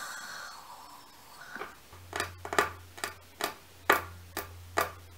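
A soft breathy exhale, then a run of sharp ticks, about two a second, over a low steady hum that starts about two seconds in.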